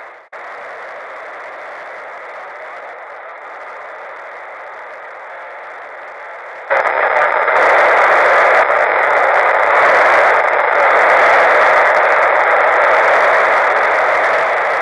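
Hiss from a VHF FM receiver tuned to the ISS downlink with no voice on it, static confined to the radio's narrow audio band. About halfway through it gets suddenly louder.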